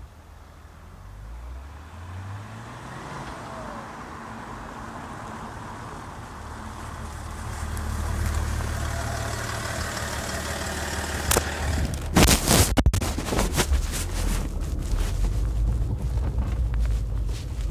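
BMW E46 330Cd's chip-tuned 3.0 straight-six turbodiesel with an RM3 exhaust, its note rising in pitch in the first few seconds and growing louder for several seconds. About twelve seconds in there is a cluster of sharp, loud cracks, and then the engine runs on as a loud, steady low rumble.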